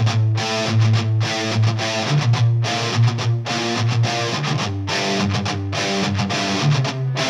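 Instrumental background music led by electric guitar.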